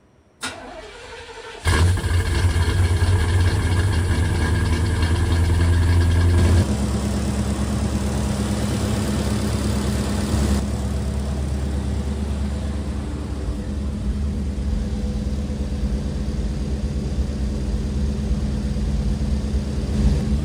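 1971 Oldsmobile Cutlass engine on Holley EFI fuel injection firing up and running at idle through its 3-inch exhaust, a loud steady running note. The note changes about six seconds in and again about ten seconds in as the idle settles.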